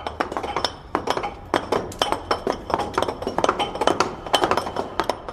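Hand chisels being struck against rock to cut a tomb: rapid, irregular metallic clinks, several a second and overlapping, as of more than one tool at work.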